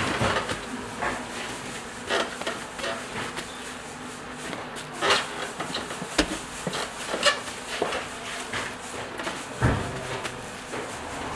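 Bakery work clatter: irregular knocks and clicks of things being handled, with a dull thud near the end, over a faint steady hum.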